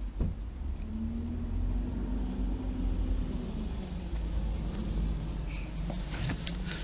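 Low, steady engine rumble of a bus passing close alongside, muffled through the closed windows of a parked car, its tone dropping slightly in pitch about three seconds in. A single knock just after the start.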